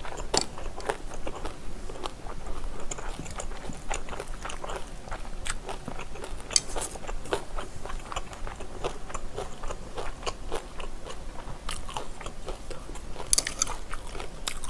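Close-miked chewing and wet mouth sounds of eating spicy stir-fried pork and squid, with short clicks of chopsticks and a spoon against the dishes.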